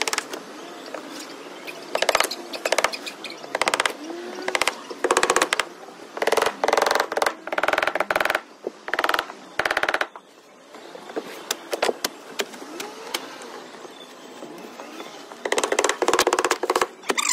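Roofing work with asphalt shingles: short bursts of rapid rattling clicks, several seconds apart.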